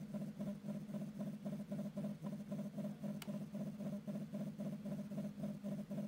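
Low pulsing hum, about five even pulses a second, presented as the sound of the white dwarf star Sirius B. One sharp click about three seconds in.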